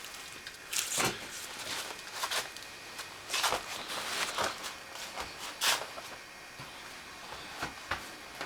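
A string of irregular scrapes and clicks, loudest in the first six seconds, then a few sharper clicks toward the end, typical of handling tools and parts during hand work.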